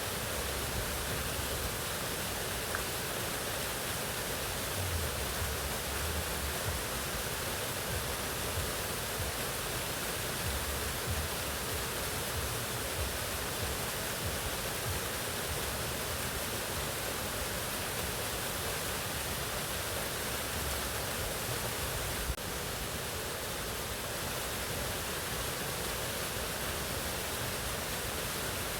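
Waterfall rushing: a steady, even wash of falling water. One brief click sounds once, about three-quarters of the way through.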